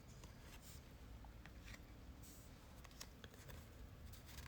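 Near silence, with faint rustles and small clicks of trading cards being handled and flipped through.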